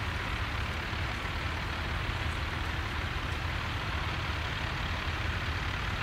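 Blue Ford diesel tractor engine running steadily while pulling a mounted plough through stubble, a low, even rumble.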